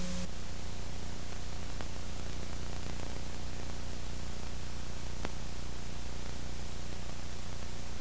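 Steady hiss with a low electrical hum underneath and a couple of faint clicks: the noise floor of a transfer with no recorded sound.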